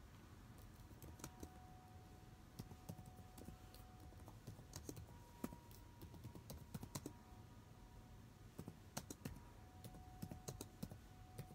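Typing on a keyboard: soft, irregular key clicks in short quick runs with brief pauses between them.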